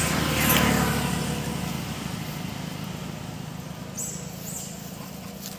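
Motor vehicle running on the road, its engine hum and tyre noise gradually fading away.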